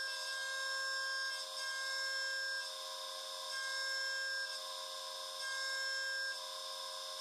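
CNC milling machine cutting a spiral pocket with an end mill under flood coolant: a steady whine of several held tones over a hiss, with one higher tone dropping in and out about every second.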